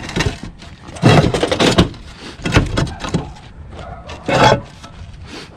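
Irregular knocks and scrapes from roof tiles being handled and shifted during a tile roof repair. The loudest bursts come about a second in and again near the end.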